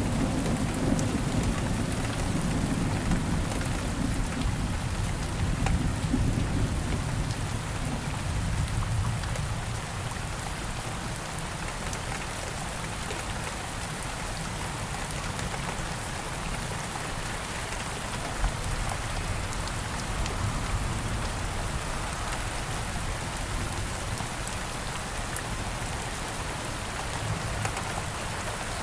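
Steady rain falling, an even hiss of many drops, with a low rumble of thunder dying away over the first several seconds.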